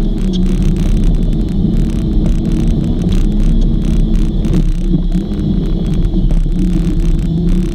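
Jeep TJ's engine running steadily under load as the Jeep climbs a rutted dirt trail, its pitch wavering slightly over a heavy low rumble.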